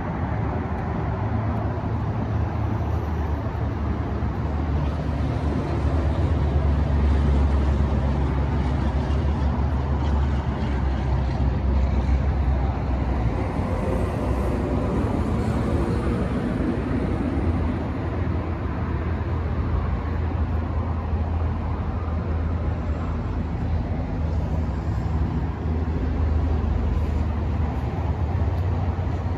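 Steady low engine hum of a motor vehicle, swelling slightly in loudness and easing again.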